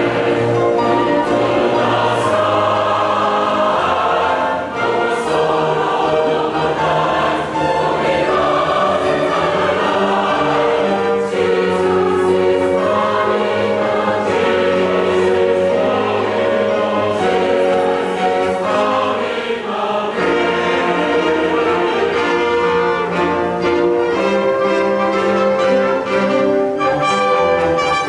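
Large mixed choir singing a choral piece, with a small instrumental ensemble accompanying.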